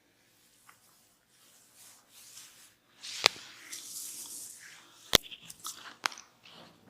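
Hands scratching and rubbing through hair in a head massage, a dry crackling rustle, broken by two sharp loud cracks about three and five seconds in and a smaller one about a second later.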